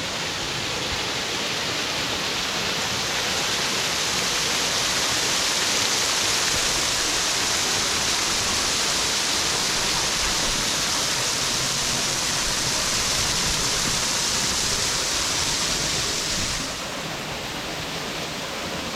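Waterfall rushing steadily, an even roar of falling water. It becomes quieter suddenly about 17 seconds in.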